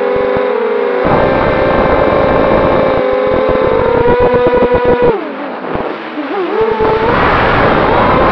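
Brushless motors and propellers of an Eachine Racer 250 FPV racing quadcopter whining, heard through its onboard RunCam 2 with wind and vibration rattling on the microphone. The pitch holds steady, drops as the throttle is cut about five seconds in, then climbs back up about seven seconds in as the throttle is raised again.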